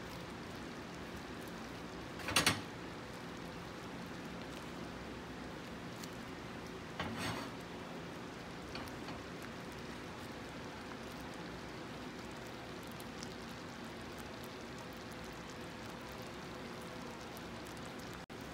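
Pan of blended bean sauce simmering on the stove, a faint steady bubbling hiss. Two soft knocks come through it, one about two seconds in and one around seven seconds.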